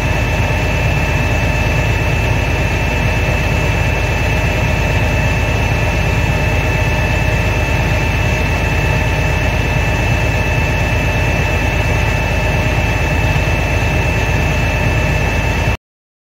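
Fire truck engine driving a Hale fire pump at about 150 psi, running loud and steady with a deep drone and a thin high whine, during a check of the pump packing's drip rate. It cuts off suddenly near the end.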